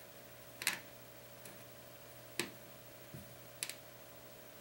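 A few light, sharp clicks about a second apart as a small tool presses and taps on the internal parts and connectors of an opened Nexus 4 phone. A faint steady electrical hum runs underneath.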